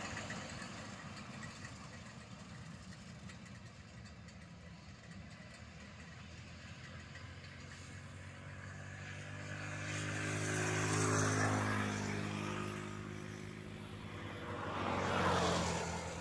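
Engine noise that swells to a peak and fades twice, about eleven and about fifteen seconds in, over a steady outdoor hiss.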